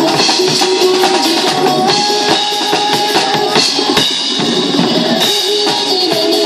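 Acoustic drum kit played live, bass drum, snare and cymbals, over a pop song backing track whose melody runs underneath the drumming.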